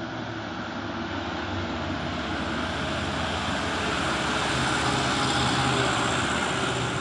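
A large road vehicle passing, its engine and tyre noise growing louder to a peak about five to six seconds in and then easing off.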